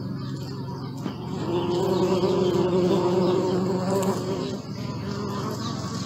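Honeybee buzzing in flight, a steady wing hum that swells louder and higher from about a second and a half in, then eases back after about four and a half seconds.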